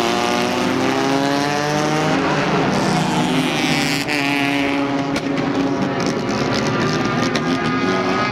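Several four-cylinder front-wheel-drive race cars running on the track, their engines overlapping, with pitch rising at times as cars accelerate past.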